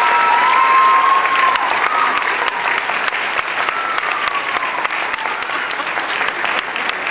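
Audience applauding, a dense patter of clapping that slowly fades, with a few high, sliding calls from the crowd over it in the first two seconds.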